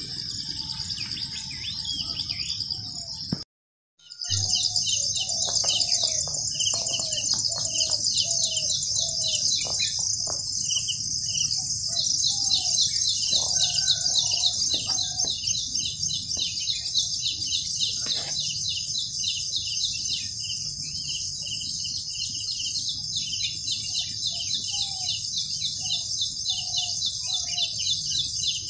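Insects trilling steadily and shrilly, with birds calling repeatedly over them; the sound drops out briefly about four seconds in.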